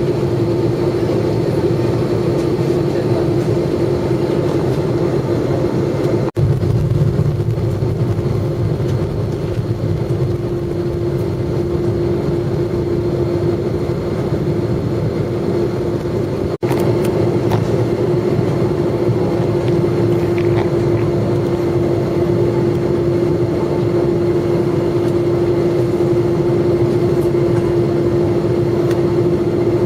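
Airliner cabin noise with the jet engines running: a steady drone with a constant humming tone, broken by two very short dropouts about 6 and 16 seconds in.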